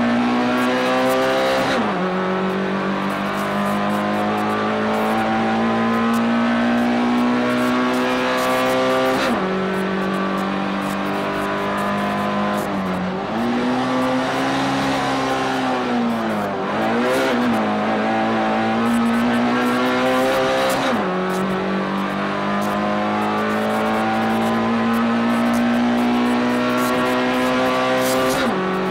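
Race car engine heard from inside the cabin, held at high revs with sudden drops at the upshifts about two, nine and twenty-one seconds in and again near the end. Through the middle the revs fall, dip twice and climb again as the car slows and picks up speed.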